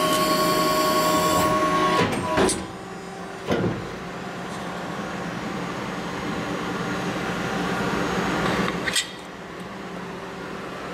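A 200-ton press brake running through a bend: its drive hums loudly and steadily, eases off after about two seconds, then builds slowly again before falling back near the end. Sharp metallic clacks come about two seconds in, again a second later, and once more near the end.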